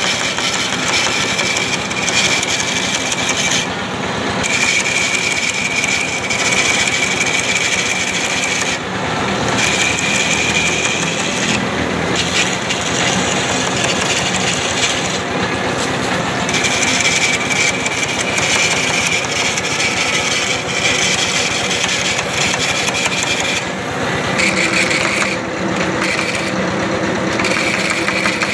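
Simple motor-driven lathe turning a coconut-wood (glugu) pole: the motor runs steadily while the cutting tool scrapes along the spinning wood. A high whine drops out briefly every few seconds.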